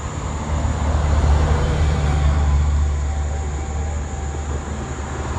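A motor vehicle passing close by: a low engine rumble that swells about a second in and fades toward the end.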